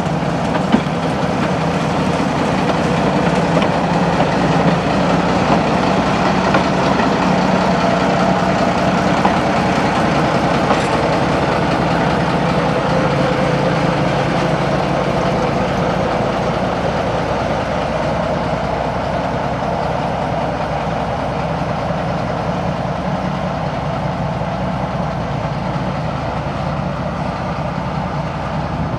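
TU4 narrow-gauge diesel locomotive's engine running steadily as the locomotive moves slowly along the track. The engine note drops a little in pitch about halfway through.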